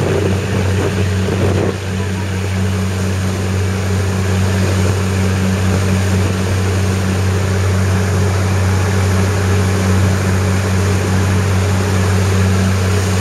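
Small passenger ferry's engine running steadily at cruising speed, a constant low hum, over the rushing noise of its churning wake and the wind.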